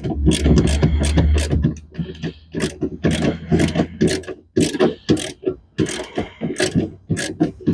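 Socket ratchet clicking in quick, uneven strokes as the 10 mm nut holding a car's inside door handle is undone.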